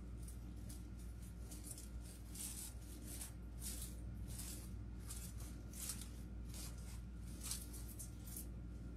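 A series of short, faint rustles as artificial greenery and flower stems are handled and tucked into wreaths, over a low steady hum.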